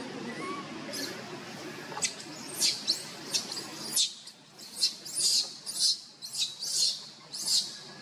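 Baby macaque giving a run of about a dozen short, high-pitched squeaks, coming faster in the second half.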